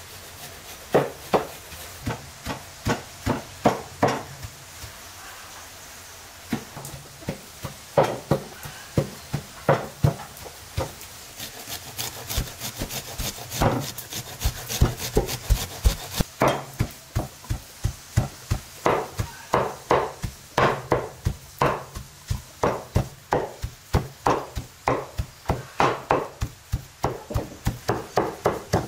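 A cleaver chopping beef on a wooden board into mince: repeated sharp strikes, steady at about two or three a second through the latter half. Near the middle comes a stretch of quicker, lighter rasping strokes from food being grated on a metal grater.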